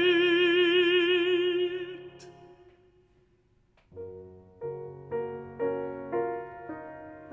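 A classical tenor holds a long high note with vibrato, which fades out about two and a half seconds in. After a short pause, the piano plays a run of chords, about two a second.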